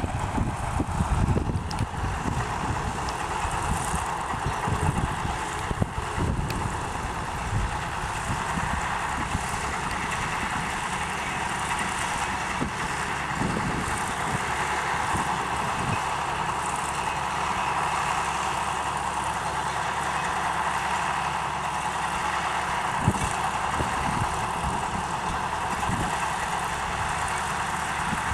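John Deere 4430 tractor's six-cylinder turbo diesel running steadily, working a New Holland 851 round baler. Short gusts of wind buffet the microphone now and then.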